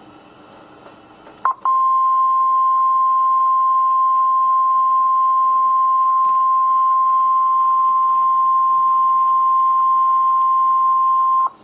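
NOAA Weather Radio 1050 Hz warning alarm tone: one steady, loud, single-pitched beep held for about ten seconds. It starts about a second and a half in after a short click, and it is the alert signal that comes before a tornado warning is read out. Before it there is only faint radio static.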